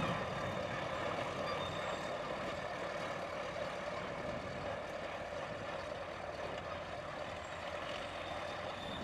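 Steady distant engine noise from vehicles or aircraft, easing off a little in level.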